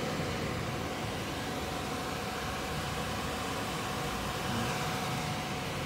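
Cooling fans of a running desktop computer and its power supply: a steady whirr with a faint constant whine.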